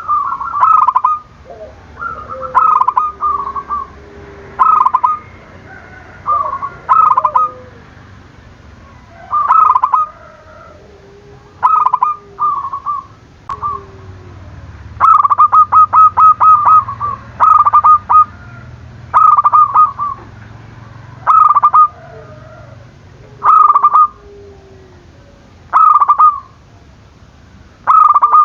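Zebra dove (perkutut) cooing: a string of short, repeated phrases every one to two seconds, each a quick run of stuttering notes, with a longer rapid run about halfway through. Fainter, lower gliding coos come in between the phrases.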